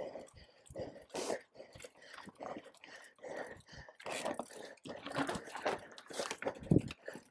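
Mountain bike rattling and knocking over rough trail in quick, irregular bursts, mixed with the rider's hard, panting breath.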